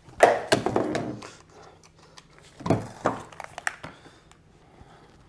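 Handling noises of headphones and a game controller: a cluster of knocks and rustles just after the start, the loudest part, and a second, shorter cluster about two and a half seconds in.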